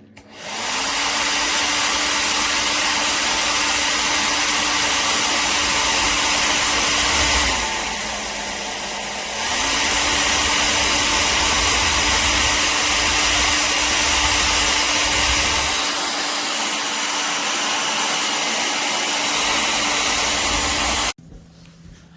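Remington ONE Dry & Style hair dryer running: the motor spins up to a steady rushing blow, drops briefly to a lower, quieter speed, returns to full speed, then is switched off abruptly near the end.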